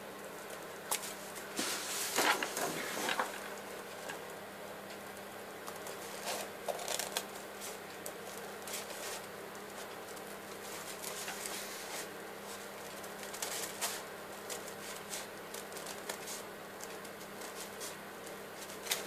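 Larger scissors snipping through thick pink Doo-Bee-Pops paper in short, irregular cuts, with the sheet rustling as it is turned; the densest run of snips comes about two seconds in.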